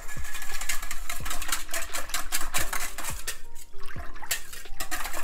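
Wire whisk beating buttermilk, egg and pickle brine in a stainless steel bowl: rapid clicking and scraping of the wires against the metal, with liquid sloshing. Soft background music plays underneath.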